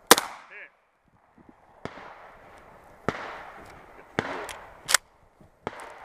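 A pump-action shotgun fires one loud shot, followed about half a second later by a short ringing tone. Five quieter gunshots follow, about a second apart.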